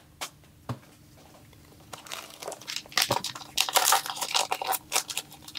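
Foil Pokémon booster pack wrapper crinkling and rustling in the hands. There are two light taps at first, then continuous crackling from about two seconds in.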